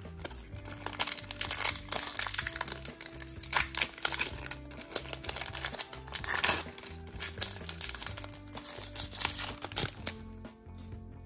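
Foil wrapper of a Pokémon trading card booster pack crinkling in quick, irregular bursts as it is handled and opened, over background music.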